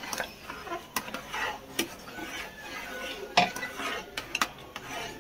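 Metal spoon stirring thick mango puree in an aluminium saucepan, scraping and knocking against the pot at irregular moments, with the loudest clink a little past halfway.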